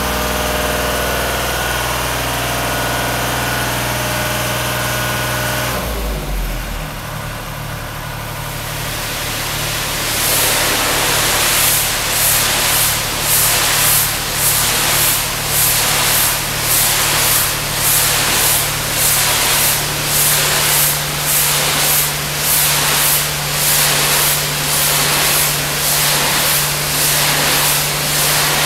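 A pressure washer's engine running; about six seconds in its note changes and drops to a steadier low hum. From about ten seconds the high-pressure water spray hisses over it, swelling and fading about once a second as the wand sweeps back and forth.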